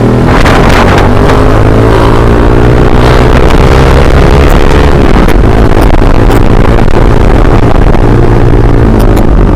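Yamaha MX King 150's single-cylinder four-stroke engine through a ROB 1 aftermarket exhaust, running loud with its pitch climbing over the first few seconds, then holding steady and easing slightly near the end.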